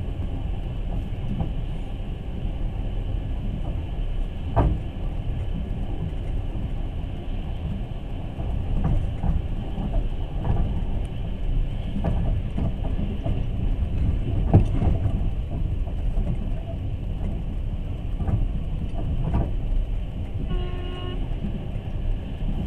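A passenger train running, heard from on board: a steady low rumble with irregular wheel knocks over the rail joints, and a brief horn-like pitched tone near the end.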